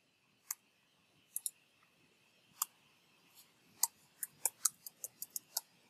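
Computer keyboard keystrokes, soft and clicky: a few scattered key presses, then a quicker run of about ten near the end as a terminal command is typed.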